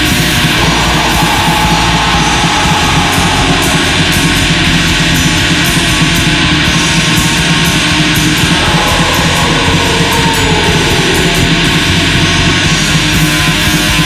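Black metal music: a dense, unbroken wall of distorted electric guitars and drums at a steady loud level.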